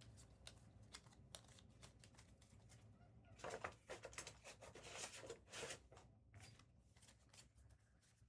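Faint rustling and light clicks of trading cards being handled, busiest from about three and a half to six seconds in.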